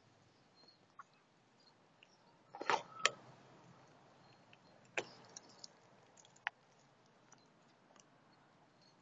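Faint, scattered clicks from a cat and two tortoises feeding at plastic bowls on dry leaf litter, with a short rustling scrape about two and a half seconds in and single sharp clicks around five and six and a half seconds.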